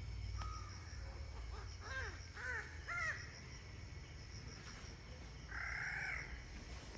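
Crows cawing faintly: three short caws about half a second apart, and a longer caw near the end.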